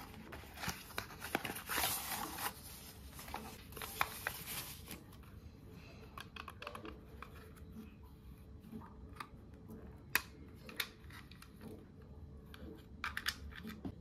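Packaging of a wireless mouse being opened: cardboard and plastic crinkling and tearing for the first few seconds, then scattered clicks and taps as the plastic mouse is handled.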